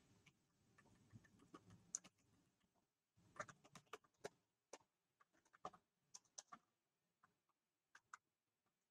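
Faint, irregular keystrokes on a computer keyboard as a line of code is typed, over near silence.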